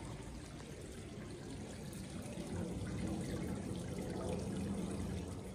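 Small stone courtyard fountain running: water spilling from its top bowl and falling steadily into the basin pool below.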